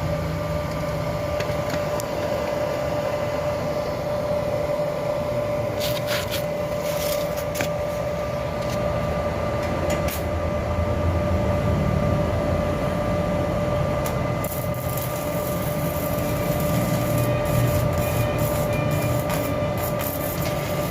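Stick (MMA) arc welding with a Classic Arc 200E inverter and a 2.5 mm rod: the arc crackles and spits in a short burst about six seconds in, then runs again for the last third, over a steady hum.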